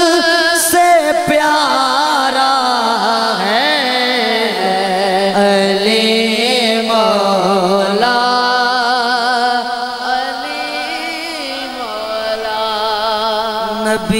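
A man singing a devotional Urdu manqabat unaccompanied, drawing out long ornamented notes with a wavering vibrato.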